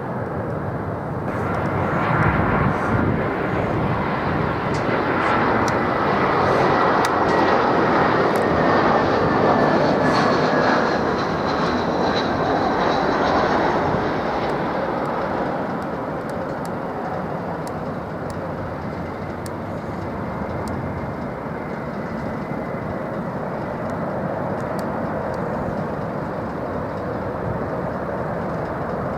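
Jet airliner on approach to land, passing close: a broad engine roar with a high whine that glides down in pitch as it goes by. The roar is loudest in the first half and then eases to a steadier, lower rumble.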